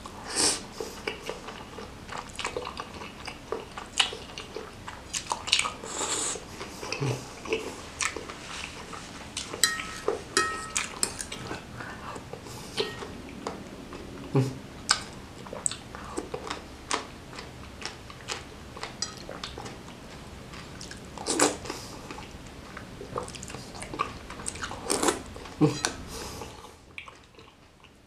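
Close-miked eating: chewing and slurping noodles and meatball in spicy broth, with many small wet mouth clicks. A fork and spoon clink now and then against a ceramic bowl, with a brief ringing clink about ten seconds in.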